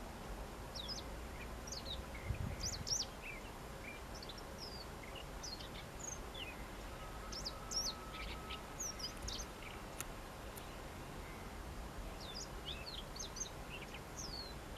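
Siberian rubythroat calling: a scattered run of short, high chirps and quick whistled notes. There is a low bump about two and a half seconds in.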